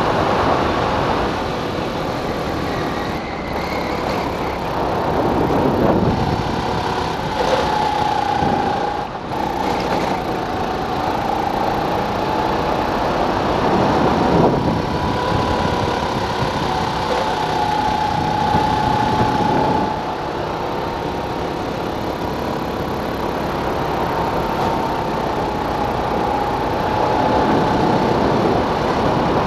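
Small go-kart engine running hard at racing speed. Its pitch falls off and climbs back several times as the kart lifts for corners and accelerates out.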